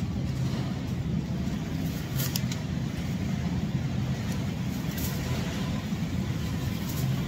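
Steady low hum of supermarket background noise, with a few brief crinkles of a thin plastic produce bag as fruit is put into it.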